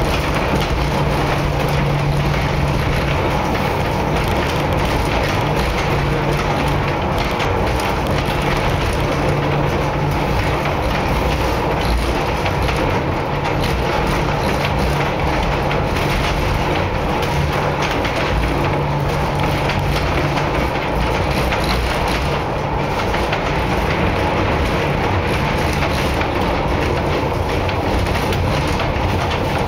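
La Coudre–Chaumont funicular car running down its track: a steady rumble and rattle of the car rolling on the rails, with a low hum that swells and fades several times.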